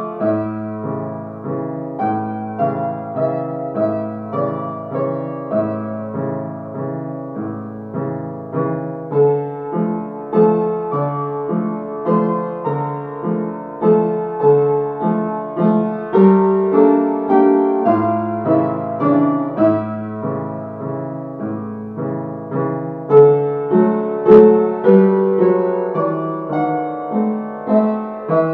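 Upright piano played solo: a Cefalonian song, with a steady repeating bass under chords and melody. One sharp click late on.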